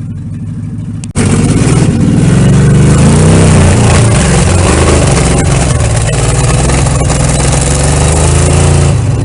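Jeep J-10 pickup's V8 engine with open headers, running steadily for about a second, then suddenly loud under hard throttle for about eight seconds as it climbs, easing near the end.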